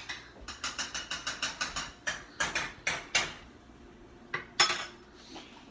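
Kitchen clatter of metal utensils and cookware: a quick run of clicks and clinks, getting louder, then one loud clank a little before the end.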